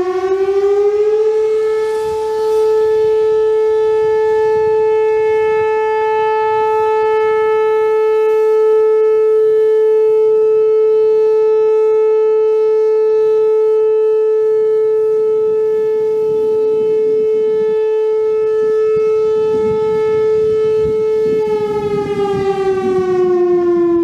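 Whelen WPS-4004 electronic warning siren sounding its steady alert tone at about 435 Hz as a siren test. The pitch finishes rising about a second in, holds one loud, steady note, then slides down near the end as the siren winds off.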